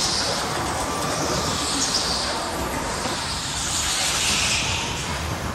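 Go-kart running at speed on an indoor track, heard from the driver's seat: steady motor and tyre noise, with a high hiss that swells and fades three times through the corners.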